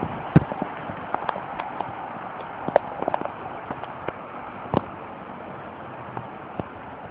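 Steady rush of typhoon wind and rain, with irregular sharp taps of drops or debris striking something close by. The loudest taps come about half a second, three seconds and five seconds in, and they thin out in the second half.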